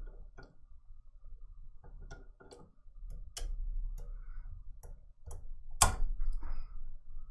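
Steel pliers clicking and scraping against a brass pen tip as it is forced onto the brass pen body, with scattered light ticks and one sharp metallic click about six seconds in.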